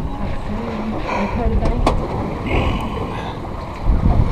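Steady low rumble of wind and choppy sea around an open boat, with a couple of light clicks from fishing tackle being handled and brief muttering.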